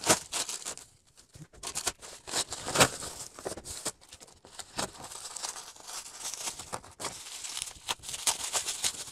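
Plastic postal packaging and bubble wrap being torn open and handled: irregular crinkling, rustling and ripping.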